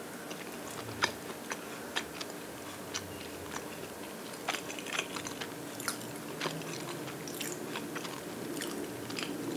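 A person biting into and chewing an egg salad avocado sandwich, with irregular small crunchy clicks from the crunchy chopped onion in the filling.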